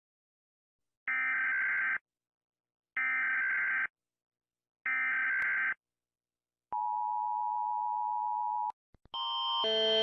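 US Emergency Alert System alarm: three short screeching data bursts of the SAME header, about two seconds apart. These are followed by a steady two-tone attention signal of 853 and 960 Hz held for about two seconds. Just before the end, a louder alert with several tones (the Canadian alert) starts and swells.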